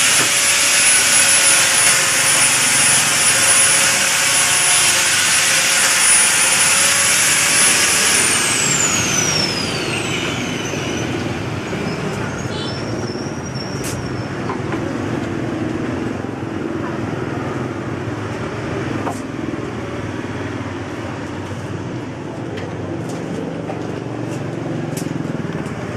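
A woodworking power tool's motor running at full speed with a high whine, then switched off about eight seconds in and winding down, its whine falling away over a few seconds. Lower workshop noise and a few sharp clicks follow.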